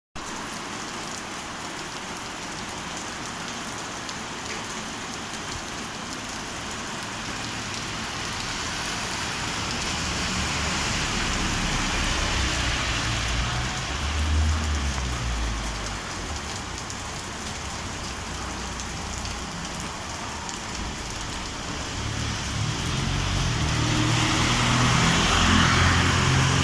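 Steady rain pouring down. A motor vehicle's engine swells and fades about ten seconds in, and another builds up near the end.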